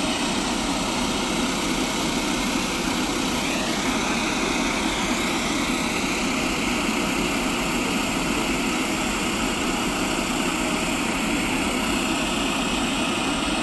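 Twin-engine turboprop airliner running its engines while parked on the ground: a steady loud drone with a high turbine whine that shifts in pitch a few seconds in.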